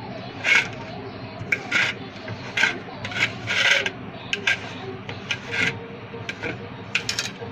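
Fingers rubbing and scraping raw prawns through a dry coating of spice powder, cornflour and maida on a stainless steel plate, in short, irregular strokes.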